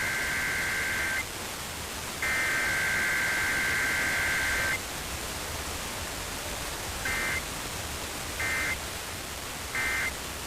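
Emergency Alert System SAME data bursts over steady radio hiss. Two long header bursts end about a second in and near five seconds in, then three short end-of-message bursts follow about 1.3 s apart, marking the close of a weekly test.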